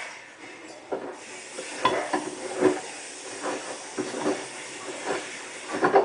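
Hotpoint WT960 front-loading washing machine in the rinse of its silk programme: the drum turning and the laundry sloshing and splashing in the rinse water in irregular surges over a steady hiss.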